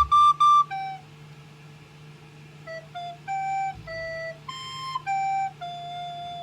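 A child playing a recorder: three short, loud high notes, then after a pause a slow melody of single notes that ends on a long held note.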